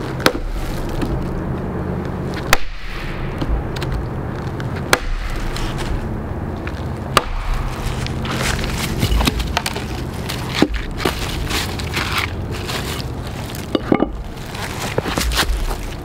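Hatchet chopping firewood on a wooden stump: sharp strikes of the blade into wood roughly every two seconds, with lighter knocks between.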